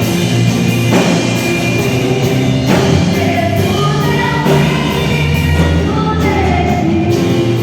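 Live Christian worship band playing, with voices singing held notes over drums and instruments; a couple of sharp drum or cymbal hits stand out.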